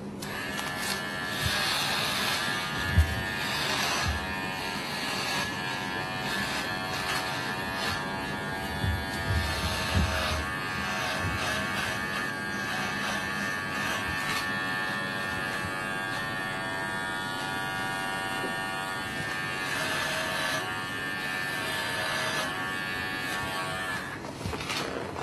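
Electric hair clipper buzzing steadily as it shaves long hair close to the scalp at the back of the head, its pitch dipping briefly and recovering several times, mostly in the first half. A few light knocks, the sharpest about three seconds in.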